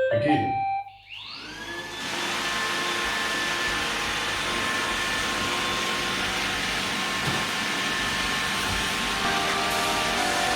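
iRobot Roomba 966 robot vacuum starting a cleaning run. It plays a short tune of stepped beeps, then its suction motor spins up with a rising whine about a second in and runs steadily.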